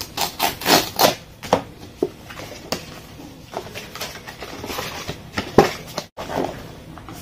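Clear plastic and cardboard packaging of a GoPro camera box being pried open by hand: an irregular run of clicks, scrapes and crinkles as the flap is worked loose.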